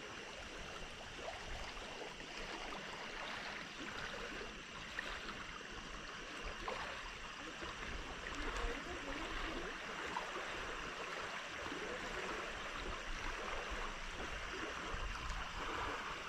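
Steady, fairly faint rush of water, like small lake waves lapping at a shore.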